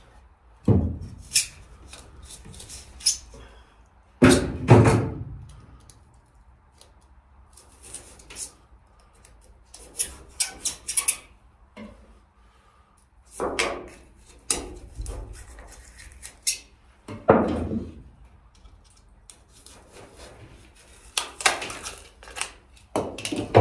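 A wooden batten being handled and knocked against the insulated hull wall: a series of separate wooden knocks and thuds, the loudest about four seconds in. There are short bursts of scraping as spray-foam insulation is cut back by hand so the batten can sit flush.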